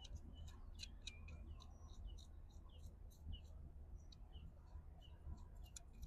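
Faint, irregular small clicks and ticks from handling a screw being threaded by hand into the back of a Starlink Mini mount.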